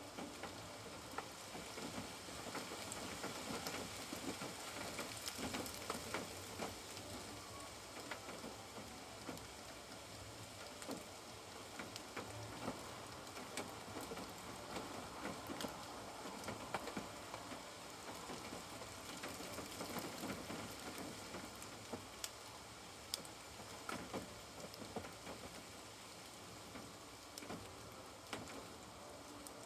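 Steady rain heard from inside a caravan, with many separate drops landing as short sharp ticks.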